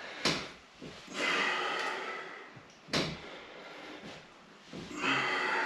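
A man breathing hard while doing TRX pull-ups: two long forceful exhales. Between them are two sharp knocks about three seconds apart.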